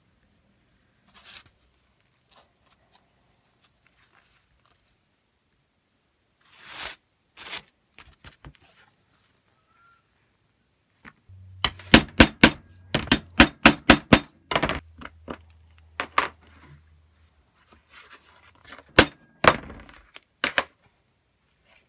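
Faint rubbing of leather as a laced leather axe sheath is handled, then a quick run of about a dozen sharp, loud knocks over some three seconds, and a few more near the end.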